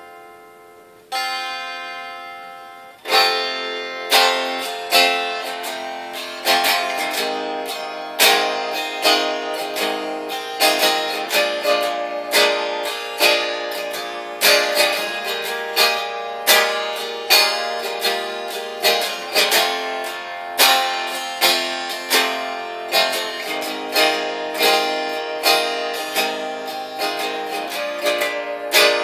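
Acoustic guitar played as a song intro: a chord rings and dies away, another is struck about a second in, and about three seconds in steady rhythmic strumming begins and carries on, each strum ringing into the next.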